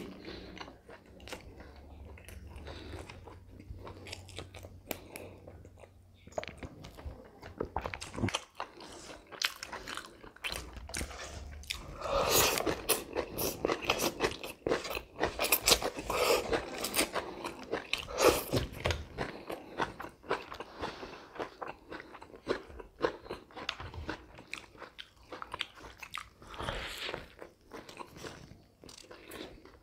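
Close-miked eating sounds: crunching and chewing of raw salad greens and vegetable strips, with many short crackles and wet mouth clicks, densest around the middle.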